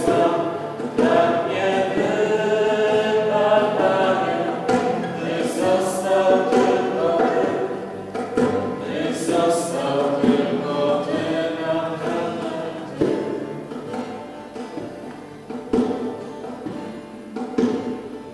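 Choral music, voices singing together, growing quieter over the last few seconds.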